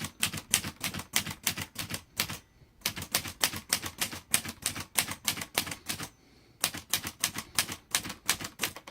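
Olivetti Lettera 32 manual typewriter being typed in quick runs of key strikes, about five or six typebar strokes a second, with the shift lock on. The runs break off briefly twice, about two and a half seconds in and again about six seconds in.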